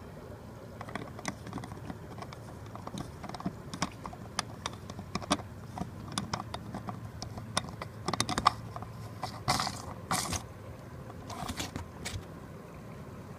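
Irregular plastic clicks and clatter as a hand fits and threads a white plastic nut onto the threaded port of an Intex pool pump fitting, with a few brief louder scrapes near the end.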